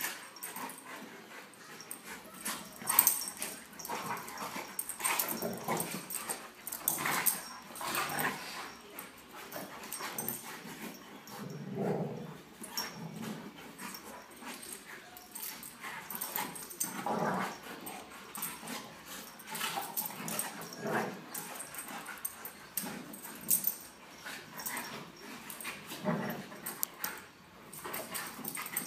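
An 8-month-old Alaskan Malamute and an 11-month-old Golden Retriever wrestling: growls, yips and whimpers come in irregular bursts every second or two, mixed with scuffling on the carpet.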